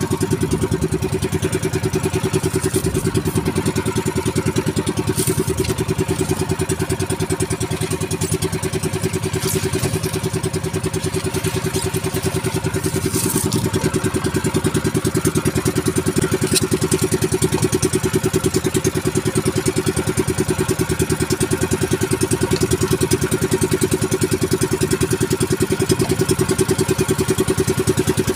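Engine of a motorized outrigger fishing boat running steadily under way, a fast, even pulsing drone that does not change.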